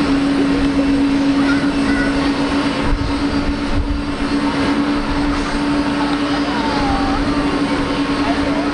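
Steady jet aircraft engine noise with a constant droning hum that holds one pitch throughout.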